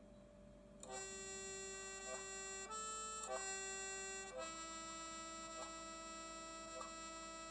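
Red piano accordion playing a slow tune of long held reed notes. It starts about a second in, after a brief near-quiet moment.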